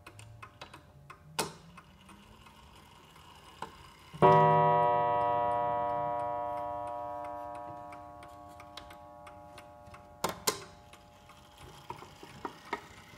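Vintage pendulum mantel clock ticking, then about four seconds in its coil gong is struck once and rings out, fading over several seconds: the half-hour strike, set off as the minute hand is turned to the half hour. A couple of sharp knocks come near the end.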